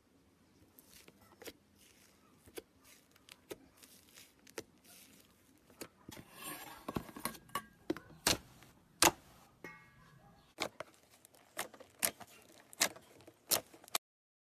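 Slime being mixed and squeezed by hand, making a run of sharp little pops and clicks that come sparsely at first and grow denser and louder about halfway through. The sound cuts off suddenly shortly before the end.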